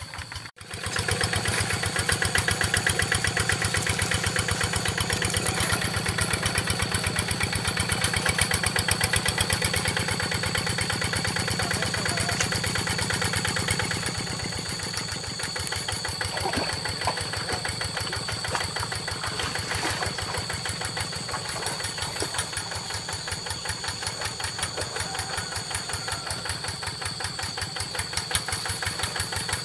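Single-cylinder diesel engine of a G1000 two-wheel hand tractor running steadily with an even chugging beat, getting a little quieter about halfway through.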